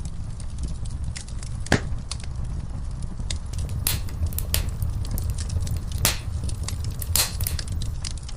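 Wood fire burning in a fireplace: a steady low rumble of flames with scattered crackles and a handful of louder pops from the burning logs.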